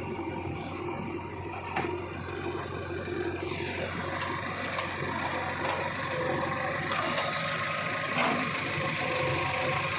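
JCB 3DX backhoe loader's diesel engine running steadily, with several sharp knocks and scrapes at irregular moments and a short falling whine about three and a half seconds in.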